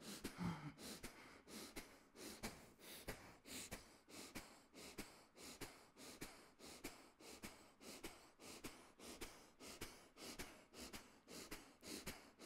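Faint, rapid, forceful exhalations, about two to three a second in an even rhythm, each one a short push of breath as the abdominal muscles snap the belly in.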